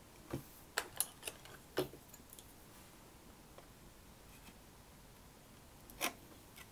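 Small clicks and taps of fingers and a thin metal tool working at the circuit board and plastic clips of a Sony MZ-N707 MiniDisc Walkman as the board is levered. A cluster of clicks comes in the first two seconds, then one more near the end.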